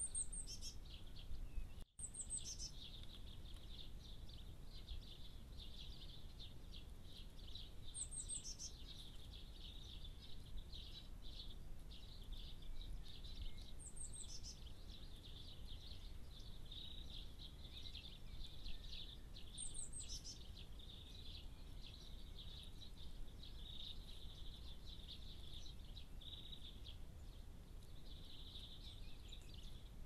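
Songbirds singing in the background: a steady high twittering chorus, with a short, very high call that drops in pitch heard five times, roughly every six seconds. The sound cuts out for an instant about two seconds in.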